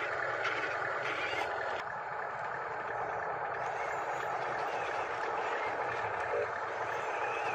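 Radio-controlled model dump truck driving, a steady mechanical running sound with no distinct knocks or pauses.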